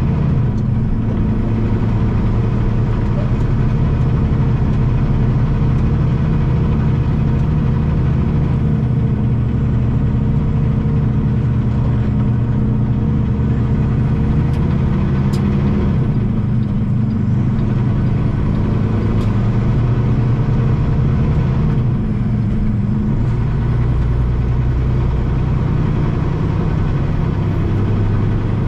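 Heavy truck's engine running steadily under way, with road rumble, heard from inside the cab. The engine note changes about three-quarters of the way through.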